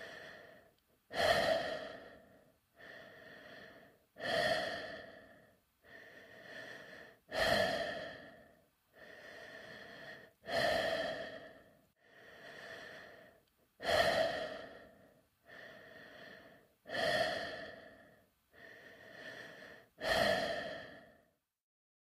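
Breathing inside a space helmet, as a sound effect: slow, steady breaths in a regular cycle about every three seconds. Each cycle is a softer breath followed by a louder one that starts sharply and fades away.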